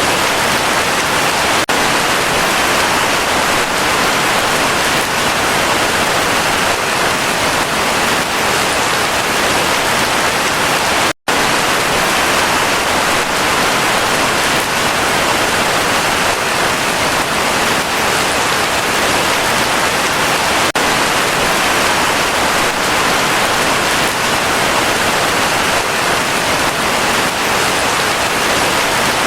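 Heavy rain falling steadily as an even hiss. About eleven seconds in, the sound cuts out for a split second, as at an edit or loop point.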